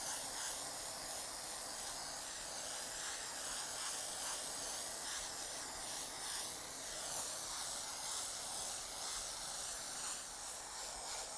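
Aerosol can of spray fixative hissing in one long, steady spray as it is swept over a pastel painting to fix the pastel.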